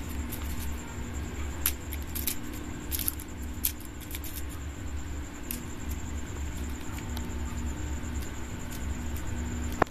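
Scattered light clicks and taps from hands working small vegetables over a kitchen blade, over a steady low hum.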